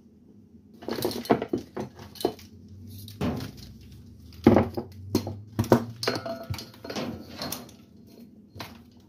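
Wiring harness and plastic plug connectors being handled and shifted around over a small engine in a metal tray: irregular clicks, knocks and rustling, the loudest knock about four and a half seconds in.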